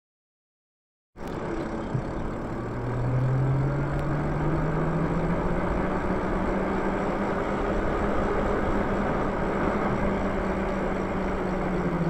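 Lyric Cycles e-bike's electric motor whining as the bike pulls away, its pitch rising over a couple of seconds and then holding steady while cruising, over a steady rush of wind and tyre noise. The sound starts suddenly about a second in.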